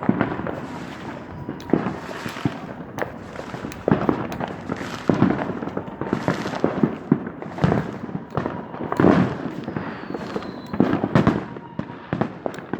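Fireworks going off in a rapid, irregular series of sharp bangs and crackles, with a thin falling whistle about ten seconds in.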